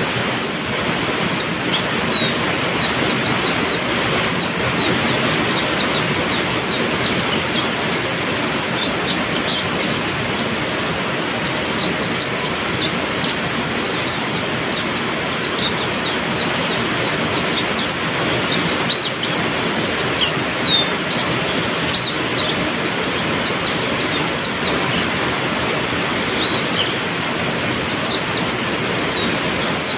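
Heavy rain falling steadily, with a white-eye (pleci) chirping over it in many quick, high, sweeping notes, several a second.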